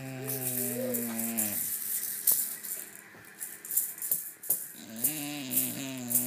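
A bulldog snoring: two long, drawn snores about five seconds apart, each holding a low steady pitch. Between and over them, a plastic toy rattle is shaken in quick, sharp bursts, louder than the snores.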